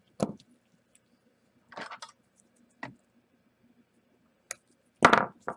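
Small hand tools being set down and picked up on a workbench: a few scattered clicks and knocks, the loudest near the end.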